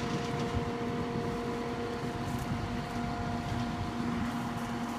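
Bucket truck's engine running steadily, with a constant hum and no change in pitch.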